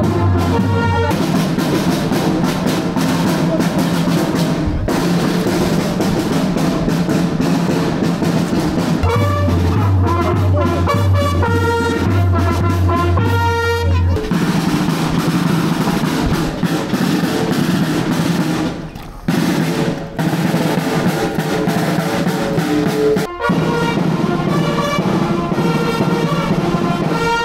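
Marching brass band playing, with trumpets and other brass over snare drum rolls. The music breaks off abruptly for a moment a few times in the second half.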